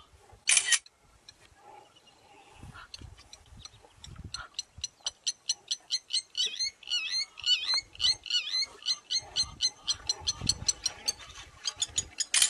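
Wild animal calls: one short loud blast just after the start, then from about four seconds in a rapid run of short chirping calls, about five a second, with wavering pitches.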